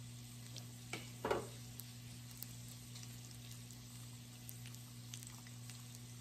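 Pork belly strips and garlic cloves sizzling on a Hamilton Beach electric raclette grill: a steady frying hiss with scattered small pops and crackles. A short louder noise stands out about a second in.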